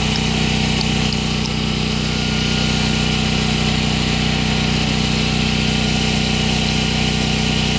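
An engine running steadily at idle, a constant unchanging hum.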